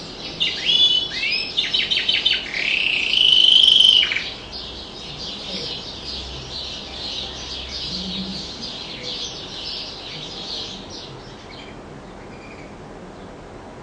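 Domestic canary singing. It opens with loud phrases of quick rising and falling whistled notes and a rapid trill, then holds one long note that ends about four seconds in. Softer, continuous warbling follows and fades out near the end.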